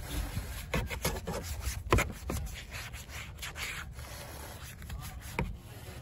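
Soft detailing brush scrubbing a foam-covered car grille and bumper: bristles rubbing in short, irregular strokes, with a sharper stroke about two seconds in and another near the end.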